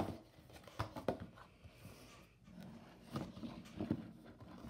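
Handling noise: DVD cases knocked and rubbed as they are moved on a table, a few light taps and rustles, the sharpest about a second in.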